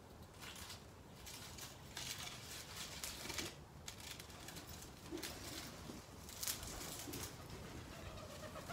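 Faint rustling and crackling of garden plants being handled, with a few soft, low pigeon coos.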